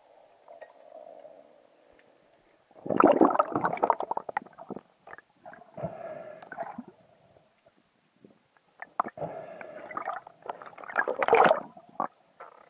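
Muffled underwater knocking, scraping and bubbling in irregular bursts as a speared grey mullet is worked out of the rocks on the spear shaft. The loudest, busiest burst comes about three seconds in, with others around six and ten seconds.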